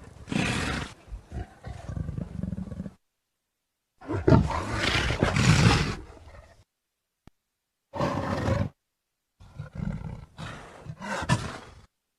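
Leopard roaring: five separate calls, each up to about two and a half seconds long, with dead silence between them.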